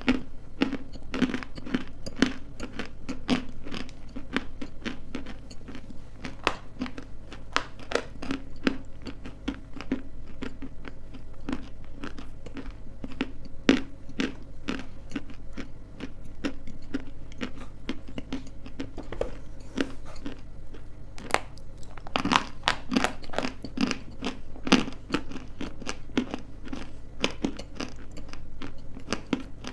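Close, crisp crunching as pieces of edible clay and chalk are bitten and chewed, many small cracks in quick succession. A run of louder bites comes about 22 to 25 seconds in.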